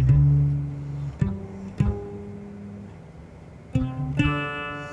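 Cello playing a short scale, mostly plucked: a few low notes ring out and fade, then two brighter, fuller notes sound near the end.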